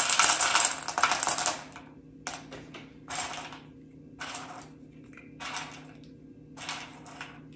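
Dried cocoa beans dropped into a stainless steel bowl on a kitchen scale. First comes a dense rattle for about a second and a half, then five short rattles a second or so apart as a few beans at a time are added to bring the weight up to 100 grams.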